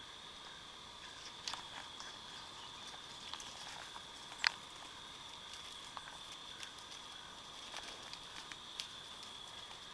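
Faint outdoor ambience: a steady high-pitched drone, with scattered light clicks and ticks, the sharpest about four and a half seconds in.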